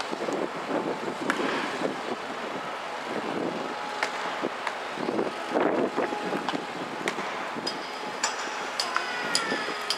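Wind buffeting the microphone over open-air ambience, with scattered sharp cracks of baseball bats striking balls in toss batting. The cracks come several in quick succession in the last few seconds, some with a brief high ring.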